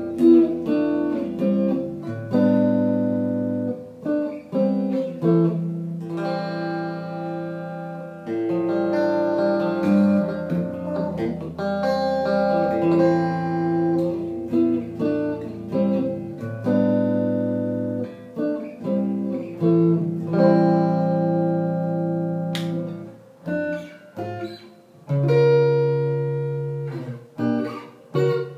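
Fernandes Stratocaster-style electric guitar played through a small amp: chords and single notes struck and left to ring, one after another, in an unhurried tune.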